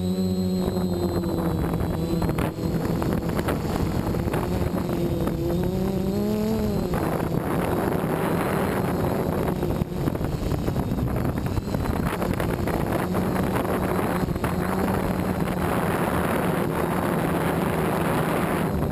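DJI F450 quadcopter's brushless motors and propellers running with a steady hum, heard from the onboard camera, with wind buffeting the microphone. The motor pitch rises briefly about six seconds in, and the wind noise grows stronger after that.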